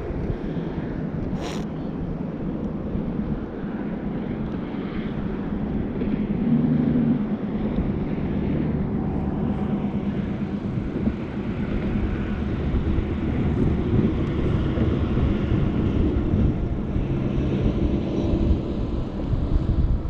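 Steady low motor drone with faint hum tones, over a rumble of wind on the microphone. There is one short click about a second and a half in.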